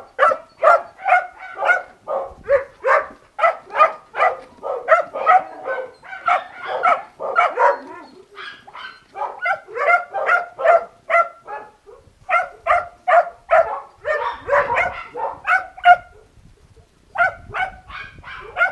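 Dog barking in quick repeated series, about two to three short barks a second, broken by a few brief pauses and a short silence late on.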